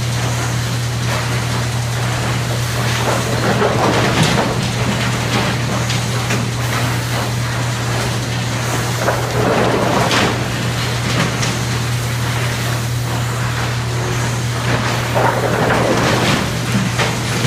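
Sawmill tilt hoist and chain transfer running: a steady low machine hum, with three surges of wooden clatter about six seconds apart as layers of lumber boards slide off the tilted package onto the lugged chains.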